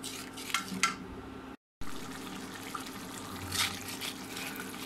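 A spatula stirring and scraping a wet spice paste in a karahi, with a few short scrapes over a light, wet sizzle. The sound cuts out briefly about a second and a half in.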